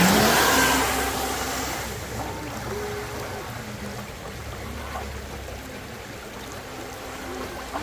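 Pro Boat Jet Stream RC jet boat's electric motor whining and water rushing from its jet. Loudest at the start, then fading within the first two seconds to a lower, steady level, the whine wavering in pitch with the throttle.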